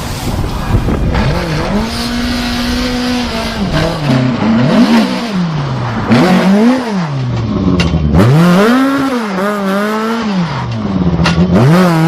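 Rally car engine revving hard, its pitch repeatedly rising and falling as the throttle is pressed and lifted, over wind and road noise.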